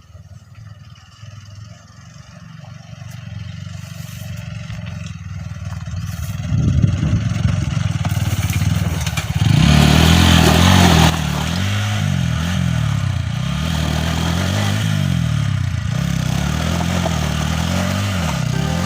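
Motorcycle engine running and revving, growing louder over the first several seconds, with a loud burst about halfway in, then its pitch rising and falling.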